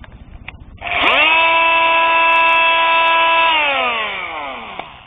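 Bosch Multitool 250 oscillating multitool with its sanding plate switched on and run briefly without load: it spins up within a fraction of a second to a steady high-pitched hum. It runs steadily for about two and a half seconds, then is switched off and winds down, its pitch falling as it stops.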